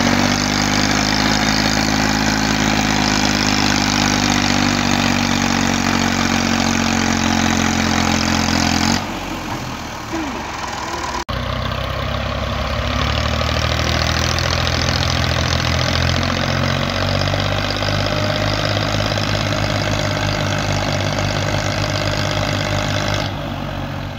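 Massey Ferguson 240 tractor's three-cylinder diesel engine running under heavy load, pulling a trailer piled with sugarcane. The engine note dips briefly about nine seconds in and cuts out suddenly for a moment at about eleven seconds. In the second half it takes on a slow, pulsing, lugging beat.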